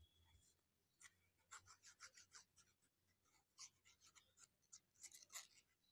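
Faint scratchy rubbing as a glue bottle's nozzle is dragged back and forth over a paper cutout, in a run of short irregular strokes.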